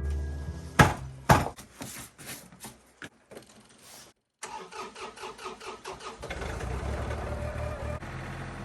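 A vehicle engine cranking over in quick pulses, catching, and settling into a steady low idle, after two sharp knocks about a second in.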